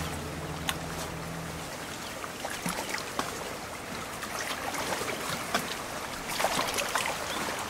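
Small shallow stream running over stones: a steady rush of water with frequent small splashes and drips. Low notes of background music fade out in the first two seconds.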